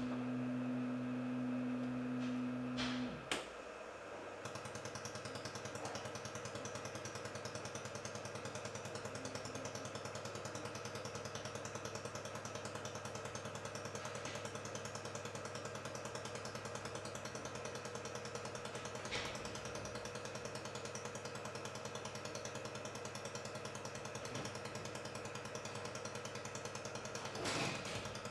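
Pulsed fiber laser welder firing a rapid, even train of pulses while it runs a programmed weld seam on stainless steel, heard as a fast steady crackle. The pulsing starts about four seconds in, after a steady hum that ends with a click.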